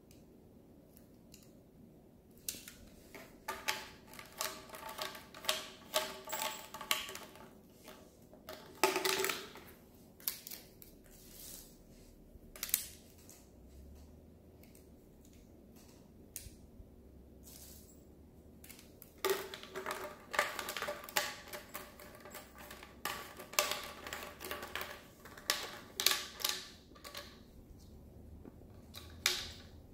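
White plastic sink drain fittings clicking and knocking together as they are handled and screwed together by hand. The clicking comes in two spells of quick clicks and knocks, with quieter handling between.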